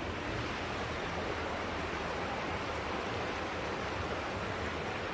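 The River Dee rushing over rocky rapids, a steady wash of water noise.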